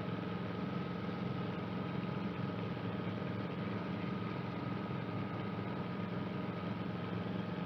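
Guimbal Cabri G2 helicopter in flight: the steady drone of its four-cylinder Lycoming piston engine and rotors, with a constant thin high tone over it.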